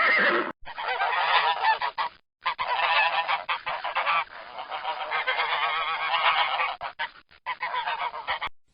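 Geese honking: a run of harsh, repeated calls, several overlapping, with short breaks about half a second and two seconds in.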